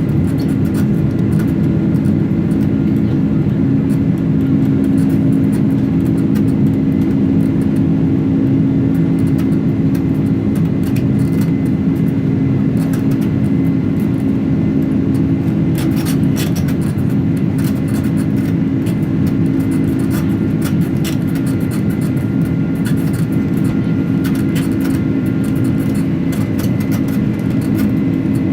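Boeing 767-300ER jet engines running: a steady, loud drone with a faint high whine held throughout, and brief rattles about halfway through and near the end.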